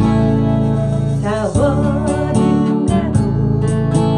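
Steel-string acoustic guitar strummed in a steady rhythm as song accompaniment, with a woman's voice coming in singing about a second in.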